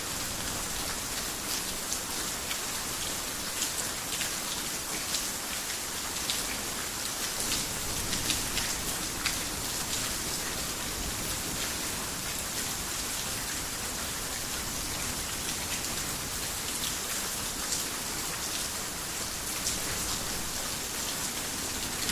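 Steady heavy rain, a dense even hiss with many sharp individual drops ticking throughout.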